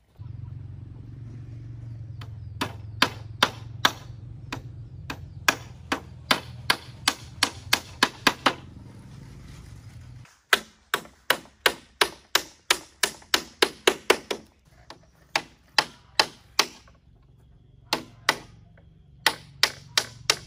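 Repeated sharp blows of a hand tool striking wood, in quick runs of about two to four strikes a second.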